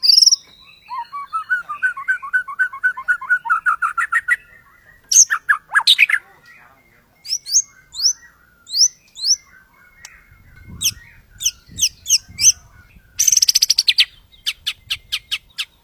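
White-rumped shama singing a varied, rapid song: a fast run of rising notes, loud sweeping whistles, short high down-slurred notes, then a harsh rapid trill and a string of quick repeated notes near the end.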